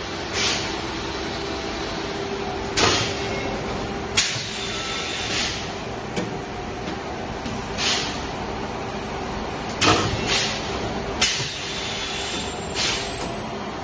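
Automated PVC oxygen-bag making machine running, with a steady hum and a constant low tone. Short hisses and a few sharp clacks come every one to two seconds from its pneumatic press cylinders.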